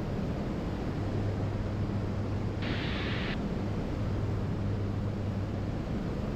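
Steady drone of a Diamond DA62's twin turbodiesel engines and propellers in cruise flight, with a short burst of hiss about three seconds in.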